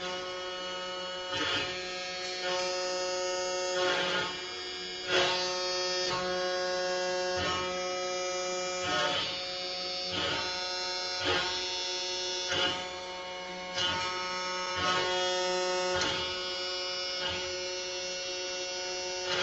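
SilverBack benchtop CNC router carving a wood board: a steady whine from the router spindle under the stepper motors' pitched hum. The tones shift every second or so, each change marked by a short tick.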